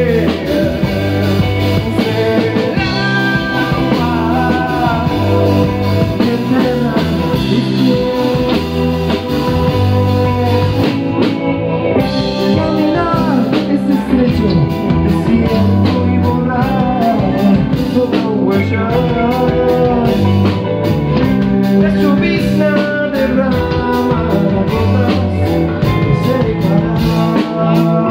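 Live rock band playing a song in a half-rock, half-chacarera rhythm: electric guitar, bass guitar and drum kit, with a man singing lead.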